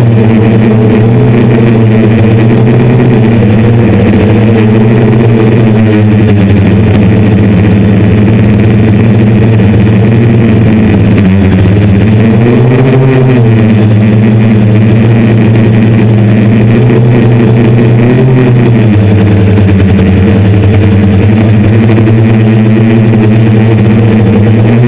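Hexacopter's six brushless motors and 10-inch propellers droning loudly in flight, heard up close from a camera on the frame. The pitch rises and falls back about halfway through.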